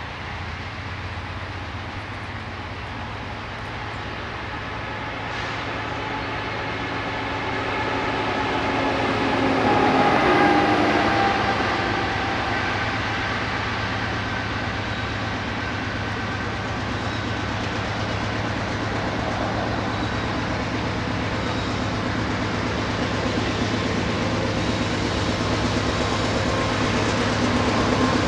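Canadian Pacific diesel freight locomotives approaching, their engines running and growing steadily louder as the train draws near. The sound swells briefly about ten seconds in.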